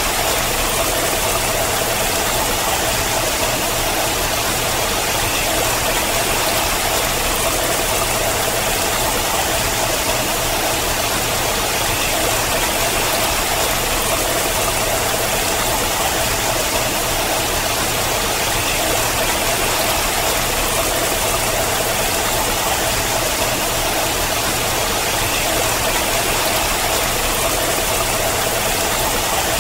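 Water cascading down a steep rock face in thin streams: a steady, even rush of falling and splashing water.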